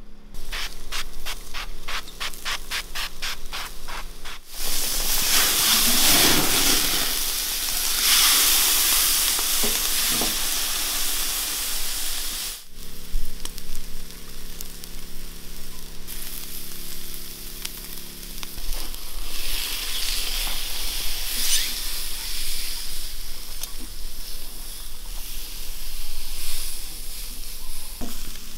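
Fat and juices sizzling and hissing on hot charcoal under a whole leg of meat roasting on a grill grate. It opens with a quick run of ticks, about four a second, and the hiss jumps in loudness a few times along the way.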